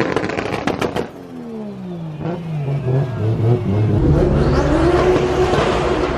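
Turbocharged car engine: a rapid fluttering chatter, typical of turbo flutter (compressor surge) when the throttle snaps shut, in the first second. The revs then fall away, and from about three seconds in the engine pulls again with the revs climbing and holding high.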